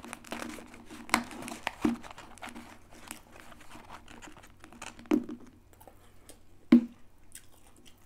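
Crinkling and rustling of a cardboard fries carton and food packaging as chips are picked out by hand, busiest in the first two seconds, with a few sharp taps scattered through, the loudest near the end.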